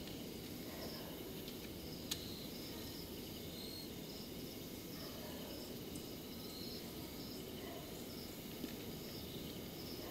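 Crickets chirping in short, repeated trills over low, steady background noise, with a single sharp click about two seconds in.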